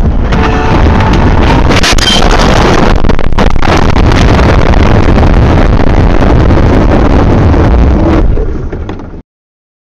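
Dashcam microphone recording of a car crash, very loud throughout: a short tone in the first second, heavy impacts about two and three and a half seconds in, then a continuous loud rumble and rushing noise that fades near the end and cuts off abruptly.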